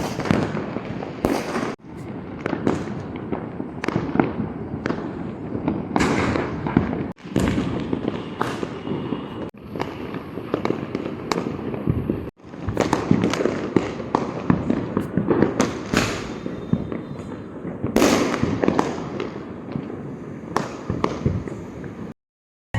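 Diwali firecrackers and fireworks going off, a dense run of overlapping bangs and crackles. It breaks off abruptly a few times and falls silent just before the end.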